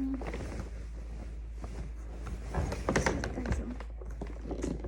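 Irregular rustling, scraping and clicking handling noises from a fabric luggage bag being worked on by hand during its repair, busiest about three seconds in.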